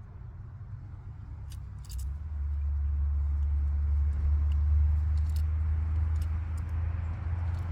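A low, steady rumble that swells about two seconds in and holds, with a few light clicks from handling scattered through it.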